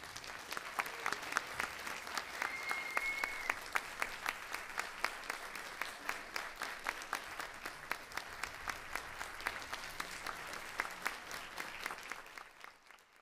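Audience applauding after the music ends, with individual claps standing out and a single high note held for about a second, about two and a half seconds in. The applause fades out near the end.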